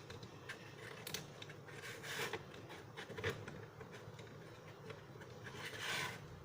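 Handling noise from an action figure being fitted onto its display stand: light clicks, rubbing and scraping, with a couple of brief louder rustles.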